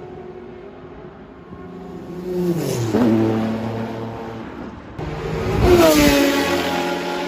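Mazda four-rotor racing engine running at speed. Its note swells twice and drops in pitch each time; the second swell, about six seconds in, is the louder.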